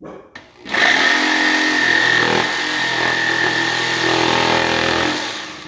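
Electric scrolling jigsaw running for about four and a half seconds, cutting, then winding down near the end. A couple of short clicks come just before the motor starts.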